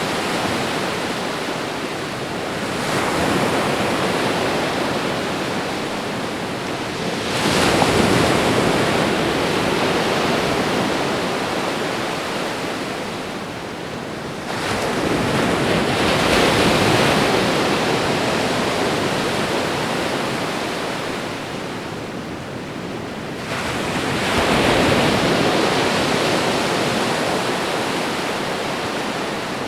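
Ocean waves washing onto a shore: a constant surf hiss that swells four times as waves break, each surge rising quickly and fading away slowly.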